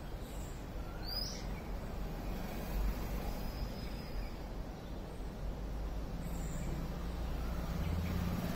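A few brief, high bird chirps, the clearest a quick rising one about a second in, over a steady low background rumble.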